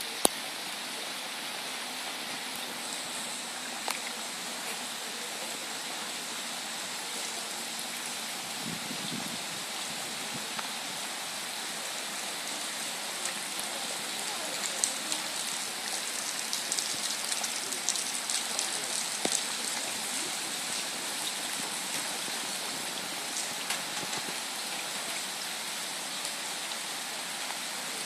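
Steady rain falling: an even hiss with scattered drop ticks, which come thicker for several seconds a little past halfway.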